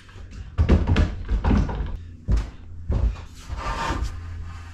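Several knocks and thuds of a long mahogany board being shifted and set against a router table's fence and metal top, with a short scraping sound near the end.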